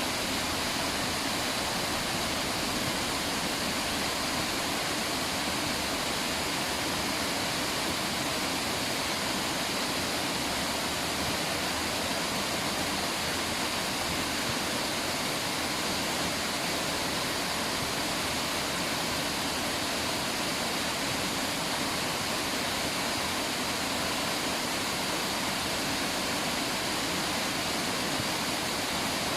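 River water rushing steadily over rocks: a constant, even roar of flowing water with no breaks.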